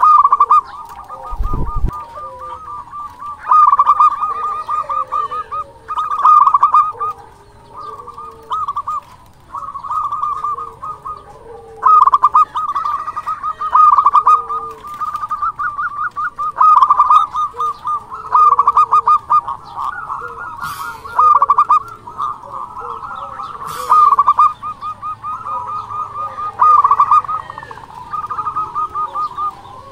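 Zebra dove (perkutut) singing: bursts of rapid staccato cooing notes every couple of seconds, with shorter, lower coos in between. A brief low thump about a second and a half in.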